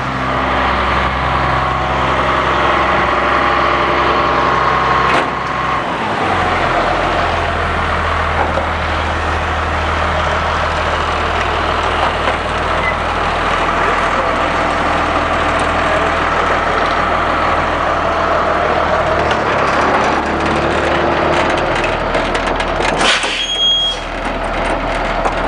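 Caterpillar C7 diesel engine of a school bus idling steadily, with a change in its low hum about five seconds in. Near the end there is a short burst of hiss and a brief high beep.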